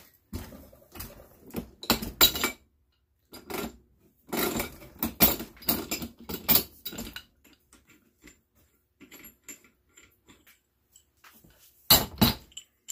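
Pipe wrench clanking and scraping on a brass pipe fitting of a steel water-valve body held in a vise, as the fitting is worked loose, in uneven bursts of metallic clinks. Two louder metal knocks come near the end.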